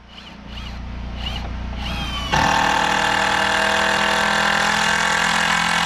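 A motor-driven machine running steadily: a faint hum at first, then about two seconds in it comes on loud with a steady, even drone.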